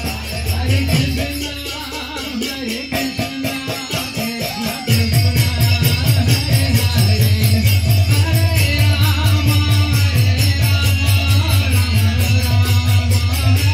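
Devotional kirtan music: group chanting over held notes with jingling percussion and a steady low drumbeat, the drum coming in strongly about five seconds in.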